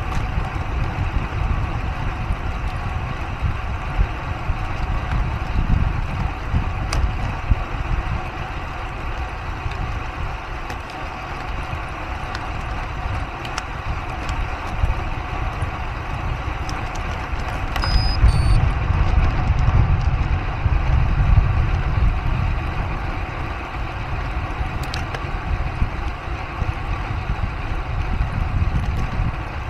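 Wind and road noise from a road bike in motion, heard through a small Insta360 Go 3 action camera: a steady low rumble that swells for a few seconds a little past the middle. A brief two-note electronic beep sounds at the start of that swell.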